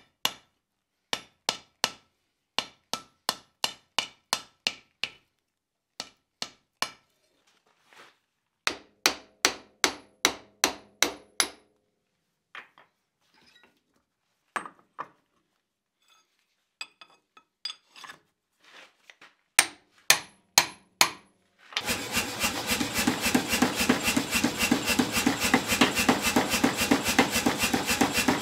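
Hand hammer striking hot steel bar on an anvil in quick groups of blows for the first dozen seconds, then scattered lighter knocks and a few hard strikes. About two-thirds of the way through, a power hammer starts pounding in rapid, continuous strokes on a guillotine tool that holds the hot bar.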